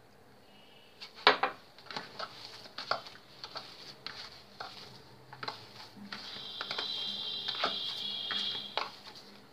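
A hand squeezing and mixing milk-moistened bread crumbs into a dough in a plastic bowl: soft squishing with scattered taps and rustles. A sharp knock comes about a second in, and a steadier rustling stretch runs through the last few seconds.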